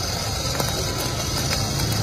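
Hand-cranked centrifugal blower whirring steadily as it is turned, with faint gear clicks, blowing air into a charcoal fire.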